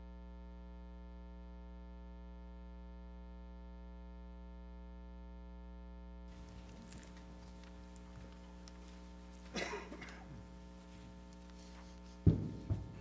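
Steady electrical mains hum on the sound system. About six seconds in, faint room noise joins it, with a brief noise near ten seconds and two sharp thumps close together near the end.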